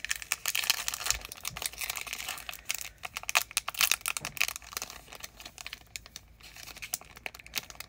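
A foil Pokémon trading card booster pack wrapper crinkling in the hands and being torn open, a dense run of irregular crackles.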